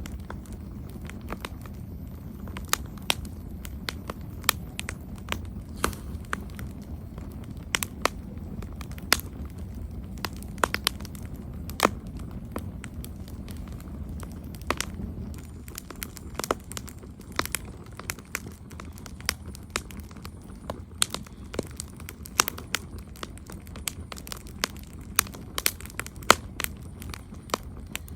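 Campfire burning: a steady low roar of flames under irregular sharp crackles and pops from the burning wood, a few of them much louder than the rest.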